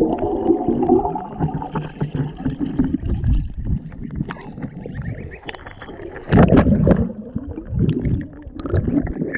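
Pond water gurgling and sloshing around a camera held at the waterline as it dips under and back up, with goslings paddling beside it; a louder splash about six and a half seconds in.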